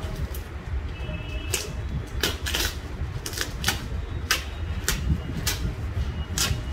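Scissors snipping through a woven polypropylene sack, a series of about eight sharp snips at irregular intervals, with the stiff plastic rustling.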